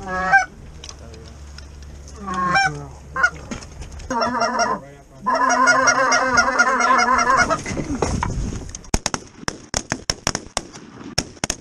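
Canada goose calls being blown from the blind: single honks, then long runs of rapid clucking and honking. Near the end come a quick series of sharp clicks.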